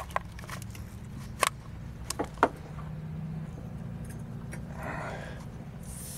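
Hands handling metal tester fittings and a hose in an engine bay: several sharp clicks and knocks in the first two and a half seconds over a low steady hum. A hiss starts at the very end.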